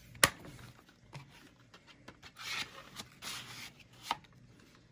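Plastic DVD case being handled: a sharp click just after the start and another about four seconds in, with rubbing and rustling in between.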